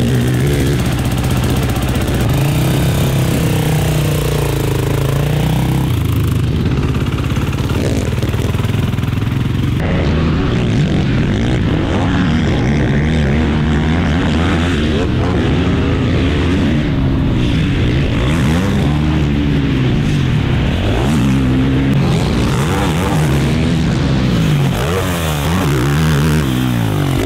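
Motocross race quad (ATV) engine running hard on the track, its pitch repeatedly climbing as it accelerates and dropping as it shifts or backs off.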